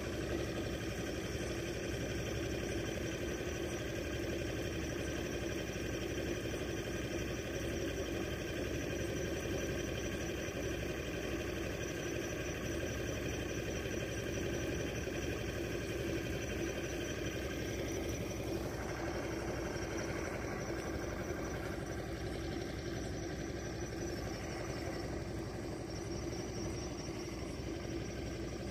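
Steady machine hum, like an idling engine, with many even tones; the higher tones thin out about two thirds of the way through.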